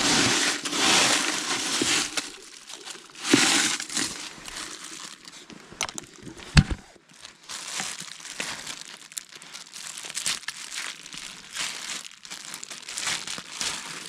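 Crinkly rustling of something being handled, coming in irregular bursts, with one sharp knock about six and a half seconds in.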